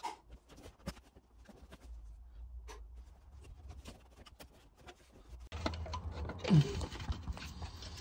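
Faint clicks and rustles of hands feeding shifter cables and handling wiring under a car's dashboard. About five and a half seconds in the sound turns louder and busier, with scraping and a short falling groan.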